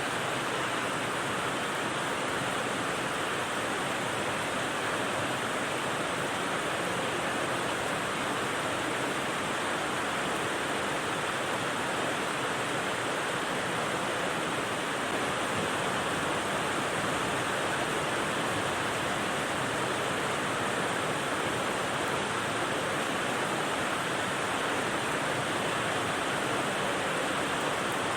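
Steady rain as a dense, even hiss, with no single drops standing out.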